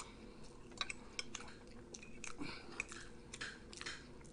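A person chewing a mouthful of steak, with scattered faint wet mouth clicks and smacks.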